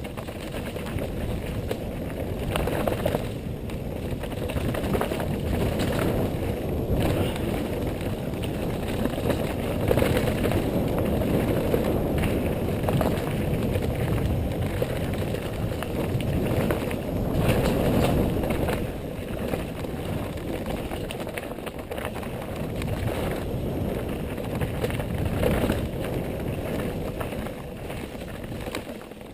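Mountain bike descending a dirt trail at speed: steady wind buffeting on the microphone over tyre rumble, with scattered rattles and clicks from the bike over rough ground.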